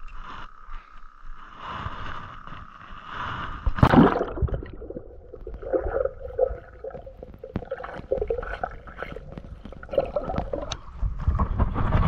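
A splash about four seconds in as a person goes into the water with the camera, followed by muffled underwater gurgling and bubbling, then louder water sloshing as the camera comes back up to the surface near the end.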